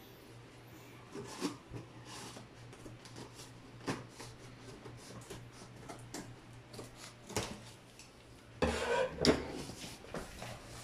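Scissors cutting through a cardboard box and its tape: scattered snips and scrapes, then a louder rustling, scraping stretch of cardboard about nine seconds in as the box top is worked open.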